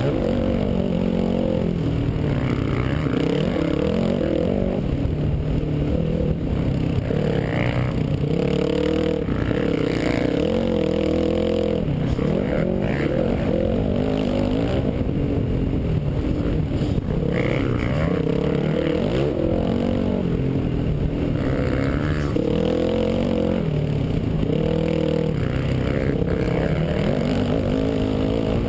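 Dirt bike engine heard from the rider's helmet camera, revving up and falling back again and again as it is ridden hard over a rough dirt track.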